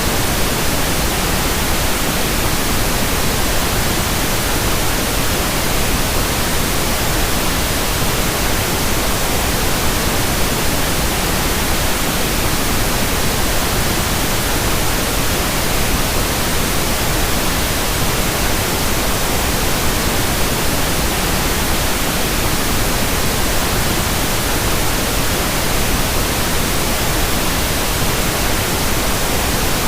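Steady synthetic masking noise for tinnitus: a constant, even hiss spread across low and high pitches alike, with no change in level.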